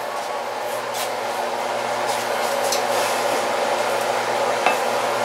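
Steady whir of a fan with a low hum underneath, and a faint click about four and a half seconds in.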